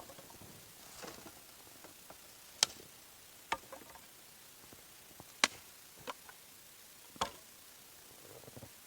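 A series of sharp knocks and cracks, about six of them, spaced irregularly a second or two apart.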